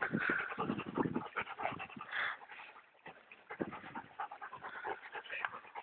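Dogs panting as they play, with many irregular short scuffing noises.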